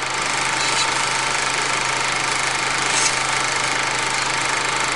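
Steady mechanical whirring and clatter of a running film projector, laid under the title cards as an old-cinema sound effect.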